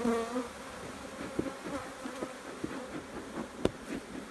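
Honey bees buzzing steadily around an open hive, with a few light clicks and one sharper knock about three and a half seconds in.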